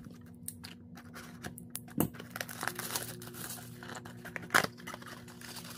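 A small knife blade slicing open a cardboard trading-card box, with scratchy tearing and crinkling and two sharp snaps, about two seconds and four and a half seconds in, the second the loudest.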